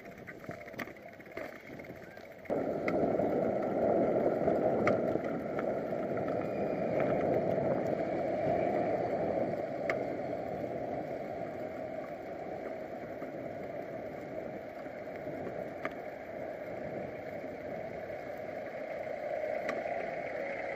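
Steady rushing noise of riding a bicycle along a city street: wind and road rumble picked up by a bike-mounted action camera, with a few light clicks. It starts abruptly about two and a half seconds in, after a quieter stretch with scattered ticks.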